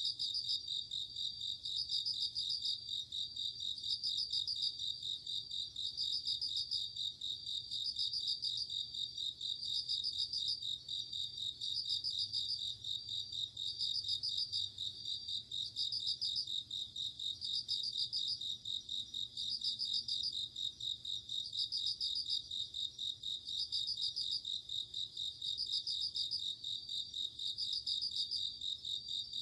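Night insect chorus of crickets, with Japanese bell crickets (suzumushi) among them: a steady high trill overlaid by a brighter pulsed chirp repeating about every two seconds.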